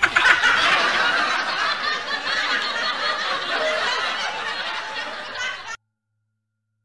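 Laughter, dense and continuous, that cuts off suddenly near the end, leaving silence.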